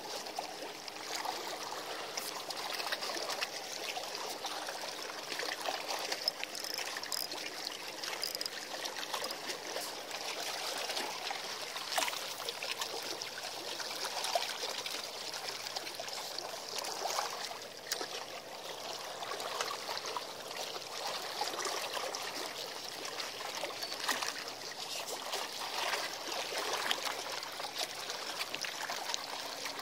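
Seawater lapping and trickling against the seawall, a steady uneven wash with small irregular splashes.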